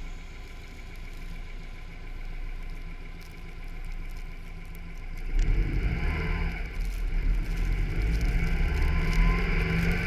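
A Subaru's engine idling low and steady while stopped, then pulling away about five seconds in, the engine and road noise growing louder as the car gets moving on the snow-packed road.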